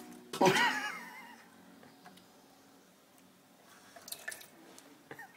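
Water from a kitchen tap splashing and dripping into a sink as a cat paws at it. About half a second in there is one short, loud, wavering cry, and a few light splashes or taps follow near the end.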